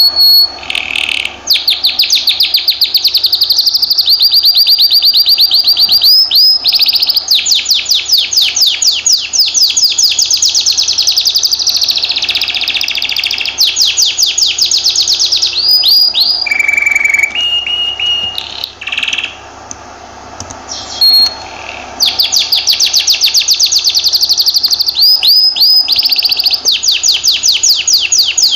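Canary singing: long, rapid trills of repeated high notes, some held on one pitch and some sweeping up or down. About two-thirds of the way through the rolls give way to a few slower, lower notes and a brief lull before the fast trilling resumes.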